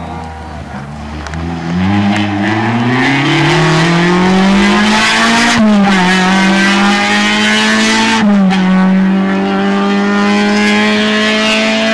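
Peugeot 206 rally car engine revving hard as it accelerates through the gears. The pitch climbs for several seconds, drops sharply at an upshift about five and a half seconds in and again about eight seconds in, then climbs again.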